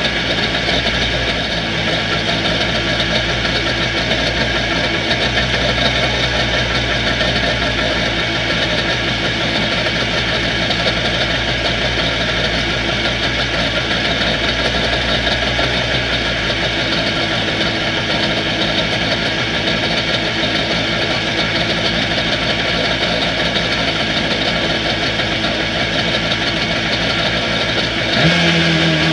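A 1992 Kawasaki 650 TS jet ski's two-stroke twin engine idles steadily on premix while running on a garden-hose flush attachment out of the water. Near the end its throttle is blipped and the engine revs up.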